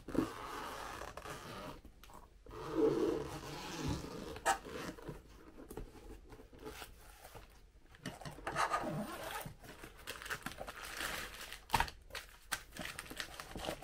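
Zipper being drawn around a Creality hard-shell carry case to open it, in several separate pulls, with some scraping and handling of the case.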